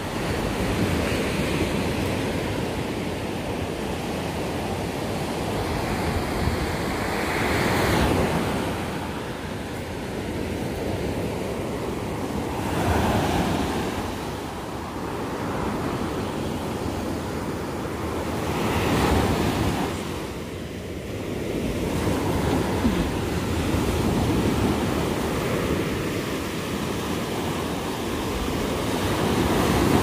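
Small sea waves breaking and washing up onto a sandy beach, a continuous surf wash that swells with each breaker every five or six seconds, with some wind on the microphone.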